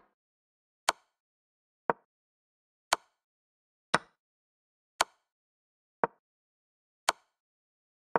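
Digital chess-piece move sounds from a chess.com game replay: a short wooden click for each move, about one a second. Some clicks are brighter and sharper than others.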